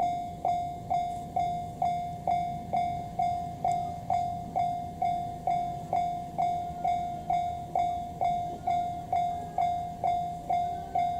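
Japanese level-crossing warning bell ringing: one bell-like tone struck evenly a little over twice a second, each strike fading before the next, with a steady low hum underneath.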